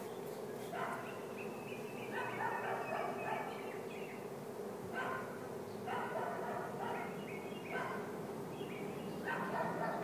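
Honey bee swarm humming steadily, with separate higher-pitched animal calls over it every second or two.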